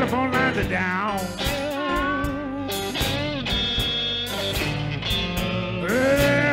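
Live slow blues band: an electric guitar plays a lead solo with string bends and vibrato over keyboard and drum backing.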